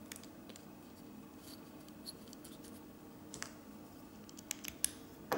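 Small plastic clicks and taps of a Lego pneumatic cylinder's parts being turned over and handled, coming quicker in the last second or so and ending in a sharper click.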